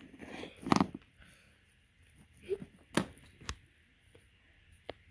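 A few sharp taps and clicks of small plastic Littlest Pet Shop figures being handled and set down on a wooden floor, spaced out with quiet gaps between.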